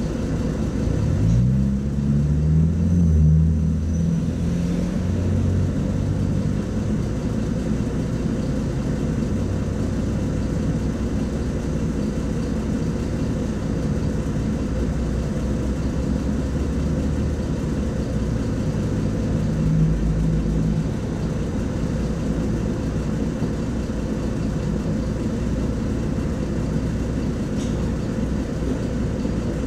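LiAZ-5292.22 city bus's diesel engine idling with a steady low rumble while the bus stands still, heard from inside the passenger cabin. A brief rising engine note comes about two seconds in.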